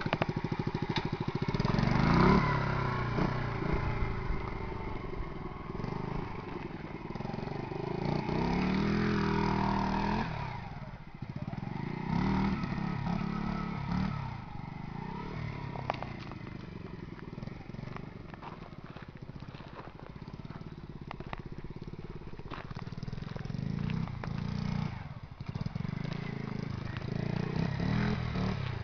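Honda Monkey 50 minibike's small four-stroke single-cylinder engine revving up and falling back again and again as it is ridden off-road over dirt mounds, with louder surges at several points.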